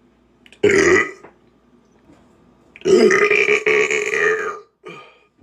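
Two loud human burps: a short one just over half a second in, then a long, drawn-out one of nearly two seconds starting about three seconds in.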